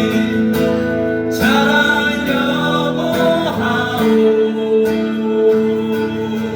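Live music: a slow ballad sung with long held notes over acoustic guitar accompaniment.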